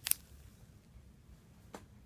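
Two sharp clicks from toys being handled: one just after the start, which is the louder, and a fainter one near the end, over quiet room tone.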